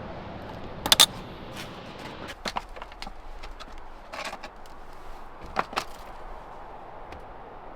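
A few sharp clicks and knocks, the loudest a quick double clack about a second in, over a low rumble that fades out a couple of seconds in.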